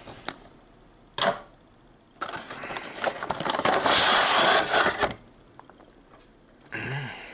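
Clear plastic figure tray being slid out of a cardboard action-figure box: a brief rustle about a second in, then about three seconds of continuous scraping rustle of plastic against cardboard.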